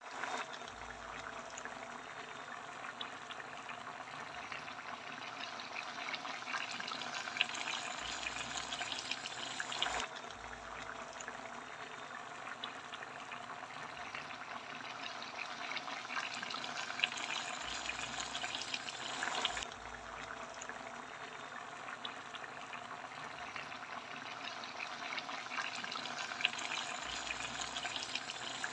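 Coconut milk sauce with crabs and squash simmering in a pan: a steady bubbling hiss with small crackles. It builds up, then drops back abruptly twice.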